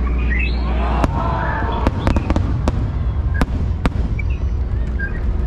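Aerial firework shells bursting overhead: a series of sharp bangs and cracks, about seven, most of them between one and four seconds in, over a steady low rumble.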